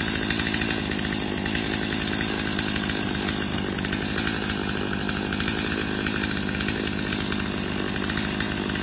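Stihl MS250 two-stroke chainsaw idling steadily, its engine giving an even, fast pulsing with no revving.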